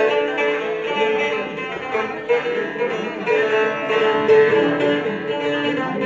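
Bağlama (saz) playing an instrumental passage of a semah tune between sung verses, with a held drone note under the plucked melody.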